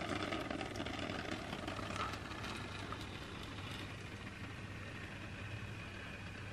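A handmade laminated scraper drawn slowly along the top of a wooden loaf mold, sliding and squelching through thick soap batter, with a few faint clicks at first and a steady low hum beneath.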